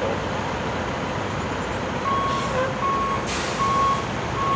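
An electronic beep repeating about every three quarters of a second, starting about two seconds in, over a steady rumbling background, with two short hisses in the middle.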